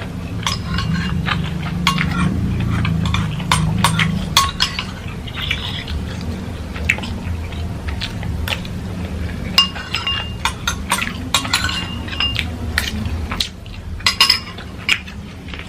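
Cutlery clinking against a plate while a serving of instant noodles is eaten up: many short, irregular clinks over a low steady hum.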